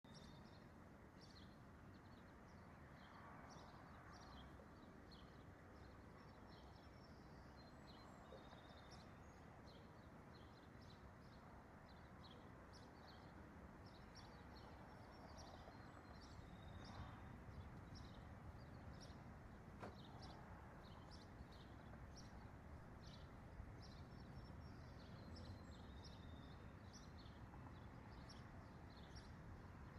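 Faint outdoor ambience: a steady low background hiss with many short, high bird chirps scattered throughout.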